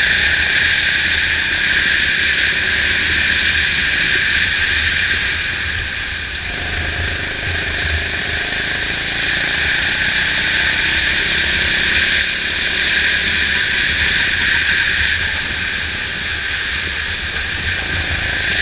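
Racing kart engine running at speed with wind noise, heard from a camera mounted on the kart; the sound is steady and loud, easing slightly a couple of times as the kart slows for corners.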